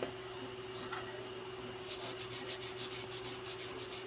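A cleaning stick scrubbing a tiny watch-movement part held in tweezers: quick scratchy rubbing strokes, about six a second, starting about two seconds in after a couple of light taps.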